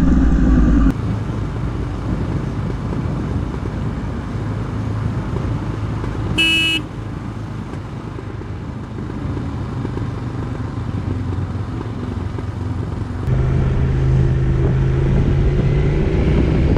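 Motorcycle engines running with wind and road noise, heard from on-board cameras across several riding clips; the engine sound changes abruptly twice as the clips change. A vehicle horn toots once, briefly, about six and a half seconds in.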